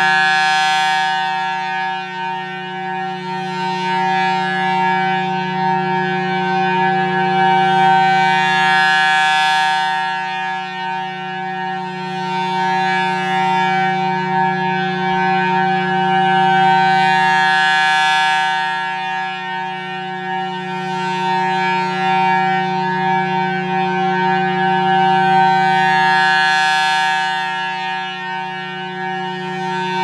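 Federal Signal Thunderbolt 1000T siren sounding a steady Full Alert tone, its blower reverse-wired to run backwards. The rotating horn makes the tone swell and fade about every eight and a half seconds, with four swells.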